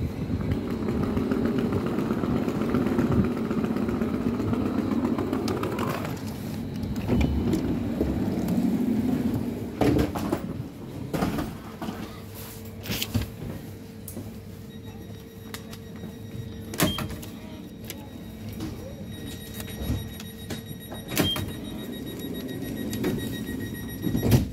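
Electric commuter train, an Sm5 (Stadler FLIRT) unit, running into the station and slowing to a stop, its rumble fading out over the first six seconds. Then comes the quieter steady hum of the standing train, with a few sharp clicks and knocks and a faint repeated beeping near the end.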